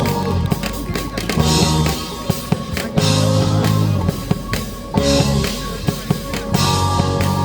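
Instrumental band music with no singing: a drum kit keeping a steady beat over held bass notes and chords.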